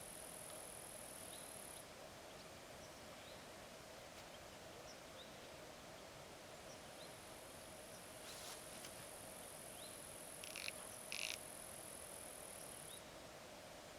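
Faint outdoor ambience with an insect trilling, high and steady. The trill stops about two seconds in, resumes around seven seconds in and cuts off shortly before the end. Two short sharp calls come just before and after eleven seconds in.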